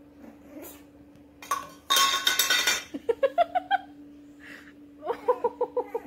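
Black pug puppy giving short, high yips in quick runs: a loud rough bark about two seconds in, then a string of yips climbing in pitch, and another quick string near the end, over a faint steady hum.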